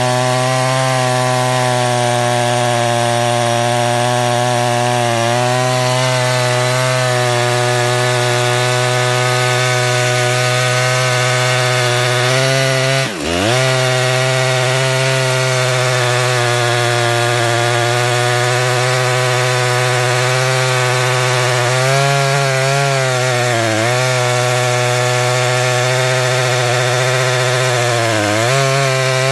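Two-stroke chainsaw on a chainsaw mill running at full throttle under load, ripping a log lengthwise into a board. About halfway the engine pitch drops sharply for a moment and recovers, with a couple of smaller dips near the end.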